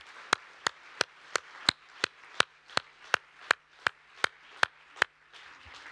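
Hand clapping: one person claps close by at a steady three claps a second over the softer applause of an audience. The close clapping stops about five seconds in.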